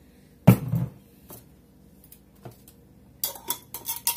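A single heavy thump about half a second in, then from about three seconds in a quick run of light clinks: a wire whisk stirring a creamy mixture in a glass measuring cup.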